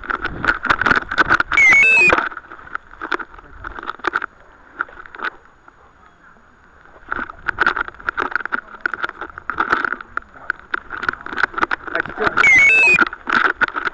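Body-mounted camera on a moving dog: rapid, irregular bumping and rustling as the dog pushes through grass and brush, dying down for a few seconds in the middle. A brief high, squeaky hiss cuts in about two seconds in and again near the end.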